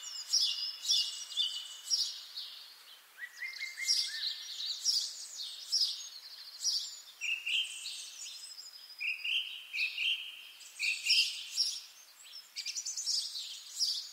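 Several songbirds singing at once: a dense chorus of overlapping high chirps and short trilled phrases.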